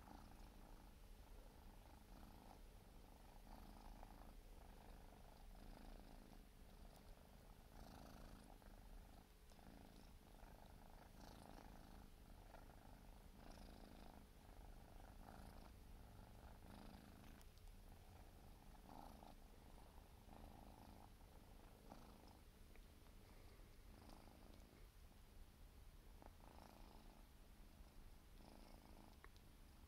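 Siberian kitten purring faintly and steadily while licking its fur, the licks coming as short, soft rasps at about one a second.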